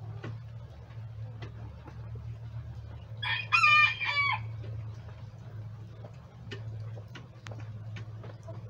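A rooster crows once, a short call of about a second and a half starting a little over three seconds in. Scattered sharp ticks and a low steady hum run underneath.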